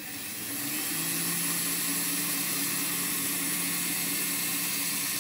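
Motor of an N-scale Kato GEVO model locomotive running under heavy load, a steady hum with a hiss over it that comes up about half a second in. The locomotive is straining to start a 31-car train and only slowly gets it moving.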